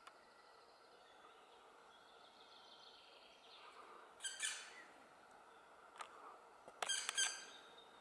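Black woodpeckers calling: one loud, short call about four seconds in and two more in quick succession near the end, with a sharp click between them. Faint songbird song in the background.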